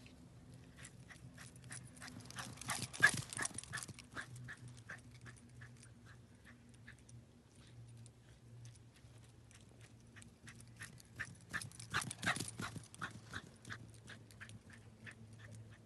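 A dog moving about, making rapid clicking and clattering sounds that bunch into two busy stretches, about three seconds in and again around eleven to thirteen seconds in. A faint steady hum runs underneath.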